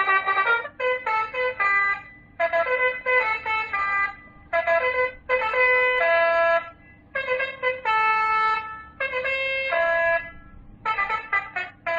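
60-watt telolet basuri horn module playing a horn melody: short phrases of steady notes, several sounding together, stepping up and down in pitch, with brief breaks between phrases.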